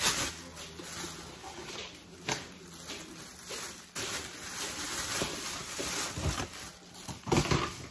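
Plastic bags and food wrap crinkling and rustling as sandwiches are packed, with a few sharp handling knocks. A brief whine sounds near the end.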